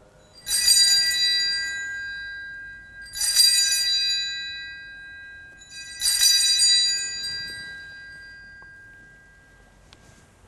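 Altar bells rung three times, about three seconds apart, each ring a cluster of bright high tones fading slowly away. They mark the elevation of the chalice just after the consecration at Mass.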